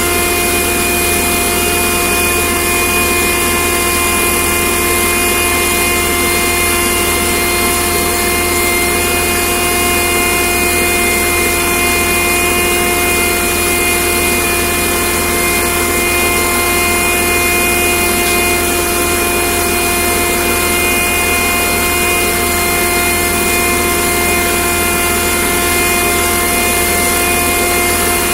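A steady mechanical drone with a constant whine, running unchanged without a break.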